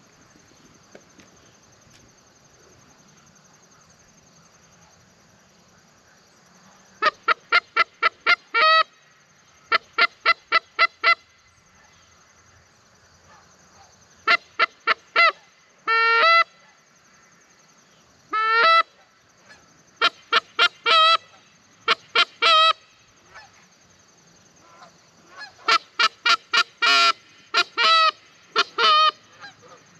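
Goose call blown in quick, evenly spaced runs of five or six short, loud honks and clucks. The runs start about seven seconds in and keep coming every second or two.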